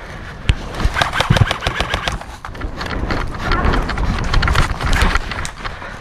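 Airsoft guns firing in irregular flurries of sharp snaps, thickest about a second in and again in the second half, over a low rumble.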